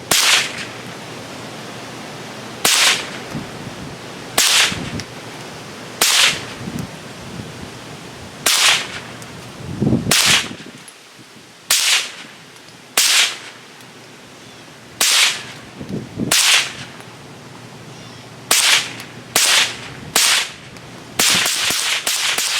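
.22 LR rounds fired semi-automatically from an AR-15 with a CMMG .22LR conversion kit: about fifteen sharp shots at uneven gaps of one to two seconds, coming quicker near the end. Every round fires without a malfunction as the magazine empties.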